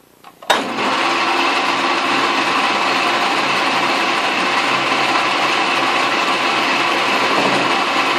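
Atlas-built metal lathe switched on about half a second in, its motor and spindle then running steadily with an end mill spinning in the chuck.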